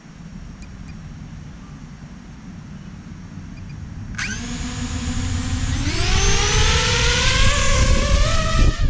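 DJI FPV quadcopter's motors and propellers spinning up with a sudden whine about four seconds in, after a low rumble of wind on the microphone. From about six seconds the whine climbs steadily in pitch and gets louder as the drone throttles up and lifts off the pad.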